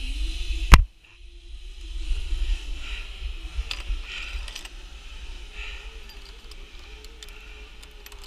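Wind rumbling on the microphone, with a sharp click about three quarters of a second in and light metallic clinks of safety-harness karabiners scattered through the rest.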